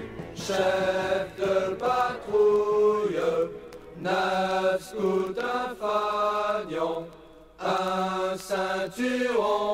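Chanted singing from a song: a vocal line holding short notes that step up and down in pitch, with a brief pause about seven seconds in.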